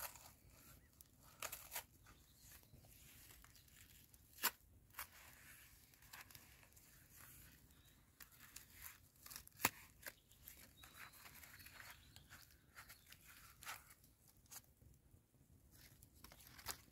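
Wrapping paper being torn and crinkled as a present is unwrapped: faint, scattered rips and rustles with a few sharper crackles, the sharpest about four and a half and nine and a half seconds in.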